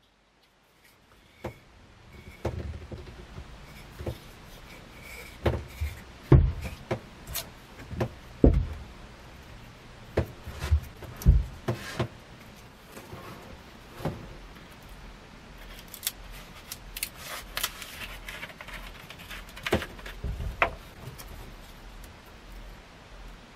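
A steel lump hammer with a wooden handle knocked and set down on a wooden workbench: irregular knocks and a few heavy thumps. Near the end come lighter clicks and rattles of a plastic bottle and cap being handled.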